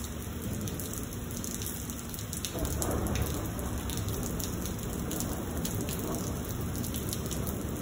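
Heavy rain pattering steadily on pavement, with a low rumble of thunder rolling in and the sound growing louder from about two and a half seconds in.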